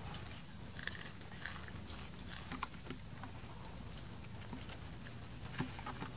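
Scattered light crackles and rustles of dry leaves and litter as infant long-tailed macaques pick through the ground, over a steady outdoor background with a faint high whine.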